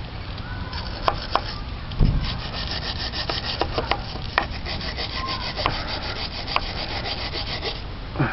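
Hand wire brush scrubbing a pitted alloy wheel, fast repeated scratchy strokes of steel bristles on the metal, with a few sharp clicks and a louder knock about two seconds in.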